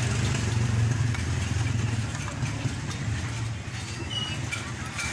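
Toyota Corolla "Big Body" car engine running steadily at idle with a low hum, a little quieter after about three and a half seconds.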